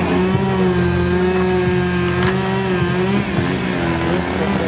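A chainsaw engine held at steady high revs for about three seconds and then easing off, over a steady low engine hum, with a single click about two seconds in.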